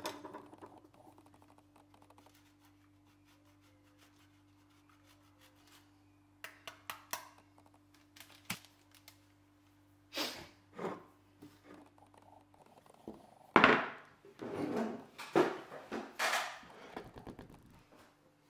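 Kitchen food preparation: a run of light clicks and knocks, then several loud scraping strokes as a block of cheese is grated over a tortilla wrap. A faint steady hum runs under it and stops about two-thirds of the way in.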